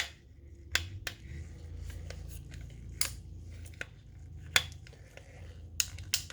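Metal clicks and knocks from a Beretta Cheetah .32 ACP pistol's slide and frame being worked by hand during reassembly, about seven scattered sharp clicks; the slide is catching on something and will not go on.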